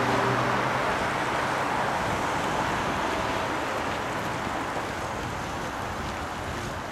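Street traffic noise: a car passes close by at the start and its tyre and engine noise slowly fades, over the steady noise of traffic on a city boulevard.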